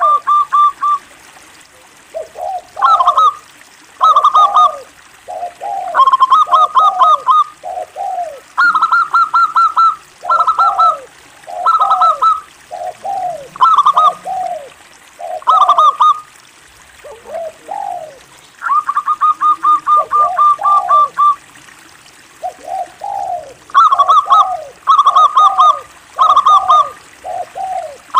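Zebra dove (local perkutut) singing: bursts of rapid staccato cooing, a quick high run of notes together with lower, falling coo notes, repeated over and over with a few short pauses.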